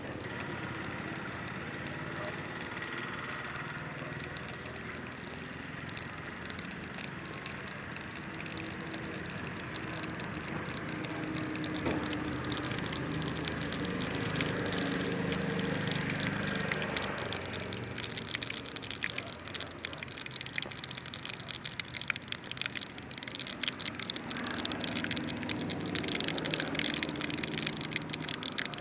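Small twig-and-firewood fire crackling under an aluminium pot of heating oil, with a steady hiss and fine, irregular crackles.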